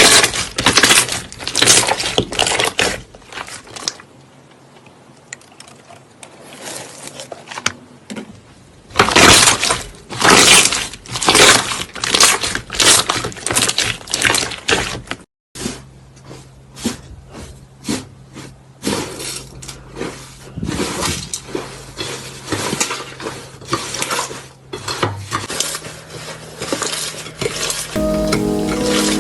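Crunchy slime being pressed and squeezed by hand, crackling and clicking in quick bursts, with an abrupt cut about halfway through. Music with pitched notes comes in near the end.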